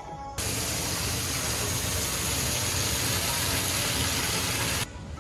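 Splashing of a plaza fountain's water jets falling from an overhead ring onto the paved floor: a loud, steady rushing hiss that starts abruptly about half a second in and cuts off just before the end.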